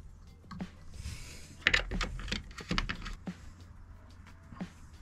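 Small clicks, taps and rattles of hands working wires and terminal hardware while a thin wire is fitted to a leisure battery's positive terminal, most of them between about one and a half and three and a half seconds in.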